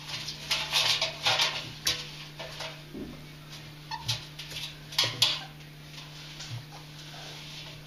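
Two ferrets making short bursts of play noises and scuffling as they wrestle inside a front-loading washing machine drum. The bursts come in clusters, about a second in and again around four to five seconds in.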